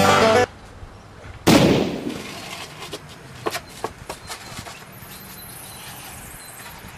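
Music cuts off sharply, and about a second later a single loud bang rings out with a short tail dying away, followed by a few faint clicks.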